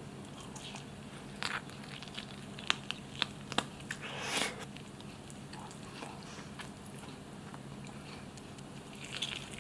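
Close-miked eating of barbecued chicken: sharp mouth clicks and bites with chewing, and a short louder noisy swell about four seconds in, over a steady low hum.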